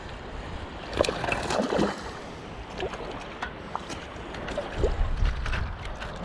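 Shallow surf water splashing and sloshing in irregular bursts as a hooked ladyfish thrashes on the line, with a low rumble of wind on the microphone near the end.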